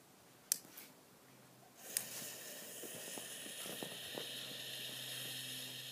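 A single sharp click, then about two seconds in a firecracker fuse catches and burns with a steady hiss and a few faint crackles.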